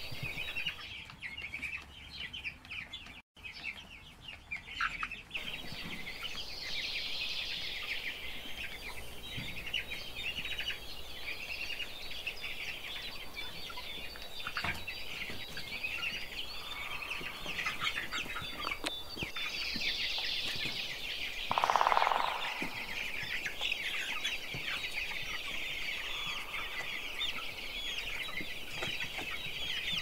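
A flock of chicks chirping continuously, many short high peeps overlapping into a steady chatter. About two-thirds of the way through there is one louder, lower sound lasting about a second.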